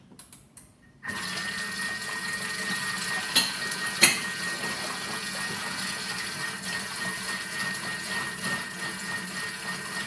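Thermomix TM6 blending eggs and cream at speed 4. It starts about a second in and runs as a steady whir with a thin high whine, the liquid churning in the jug. Two sharp knocks come about three and four seconds in.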